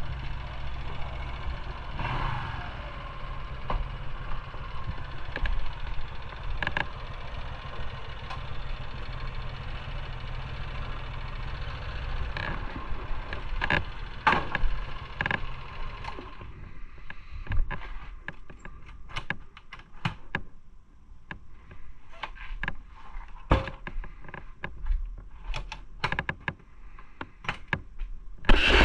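Motorcycle engine idling with a few scattered clicks, then cutting off about halfway through. After that comes a run of separate sharp clicks and knocks.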